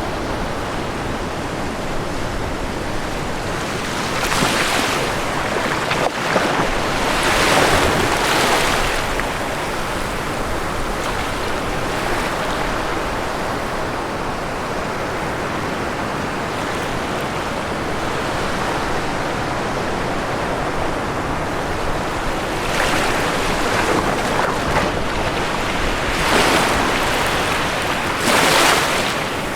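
Ocean waves breaking on a shore: a continuous wash of surf, with waves cresting louder about four seconds in, around seven to nine seconds, and twice near the end.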